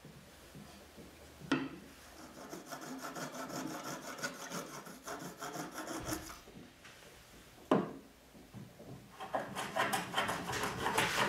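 Flush cut saw trimming end-grain cherry wedges flush with the box side in quick rasping strokes. A single sharp knock comes about halfway through, and near the end a hand plane cuts across the half-lap dovetails in rapid strokes.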